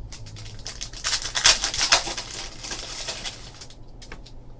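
Trading cards and their packaging being handled: a fast run of crackly rustling and clicking, loudest from about one to three seconds in, then fading.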